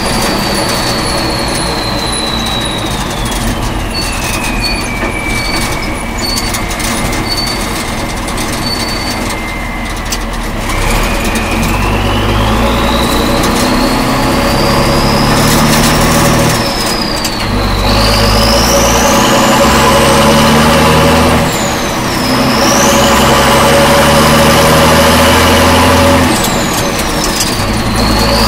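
A 1967 M35A2 deuce-and-a-half's multifuel turbocharged inline-six engine and drivetrain, heard from inside the cab while driving. A high whine falls as the truck slows, then climbs as it pulls away about ten seconds in. The engine note rises and drops back with each of several gear changes in the second half.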